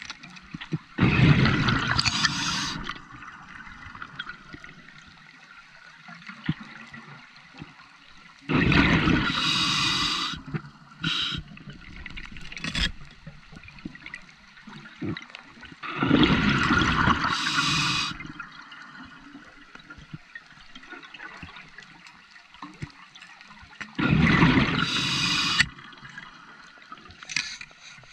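A scuba diver breathing through a regulator underwater: four long bursts of exhaled bubbles, about every seven to eight seconds, each lasting about two seconds. Between them are quieter clicks and a low hiss.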